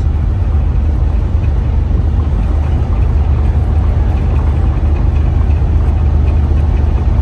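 Ship engines running in port: a steady low hum with a fainter rushing noise over it.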